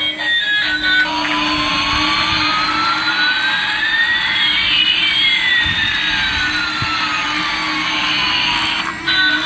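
Electronic jet-engine sound effect: a steady hiss from about a second in until near the end, with one tone rising and another falling, crossing midway.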